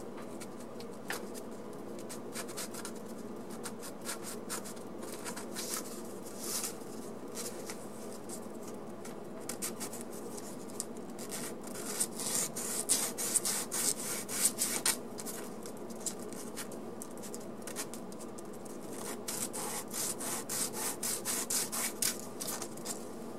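A small brass locomotive connecting rod rubbed back and forth by hand on 600-grit wet-dry sandpaper, smoothing it flat. The scratchy strokes come now and then at first, then in quick runs about halfway through and again near the end.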